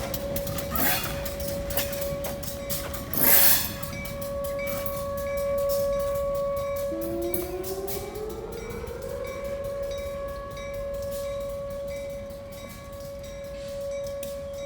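Outdoor tornado warning siren sounding a steady wail, with a second siren tone winding up to the same pitch about seven seconds in. Under it runs the rapid clicking of a passing freight train's wheels. A short, loud rush of noise comes about three seconds in.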